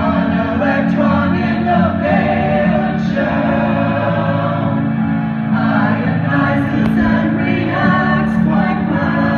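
Group of voices singing held notes together over a steady accompaniment.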